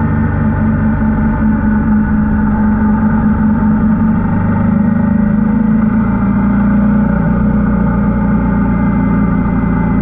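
Royal Enfield Himalayan 450's single-cylinder engine running steadily under way, a loud, even drone whose pitch shifts slightly in the second half.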